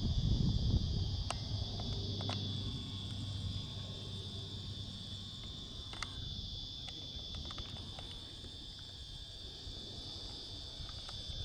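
Steady high-pitched insect chorus droning without a break. A low rumble on the microphone in the first second, and a few faint clicks.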